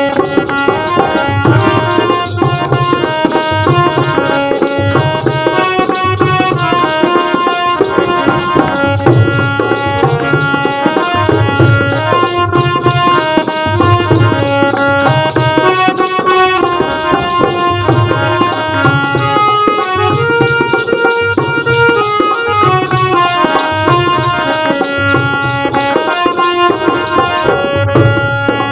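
Instrumental interlude of a Hindi Christian devotional song: a melody of held notes over a steady drum beat and a shaker-like rattle. The rattle drops out briefly near the end.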